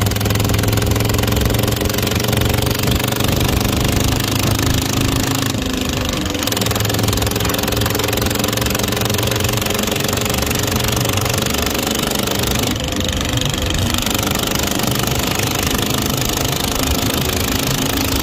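Single-cylinder power-tiller engine running steadily under load at road speed, with a rush of wind and road noise. The engine note dips briefly twice, about six and thirteen seconds in.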